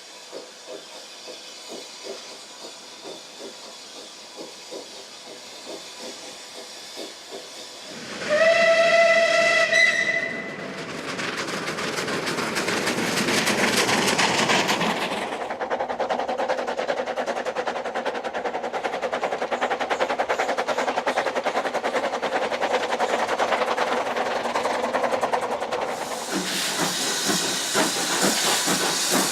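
Steam locomotive working: faint regular exhaust beats, then its whistle sounds for about two seconds, a little over eight seconds in. Loud steam exhaust and hiss with fast regular beats follow, and a stronger hiss of steam comes in near the end.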